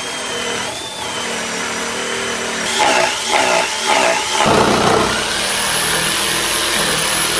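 A cordless drill bores a starter hole through a plywood top. A few seconds in, a corded jigsaw takes over and runs steadily, cutting out an opening in the laminated plywood.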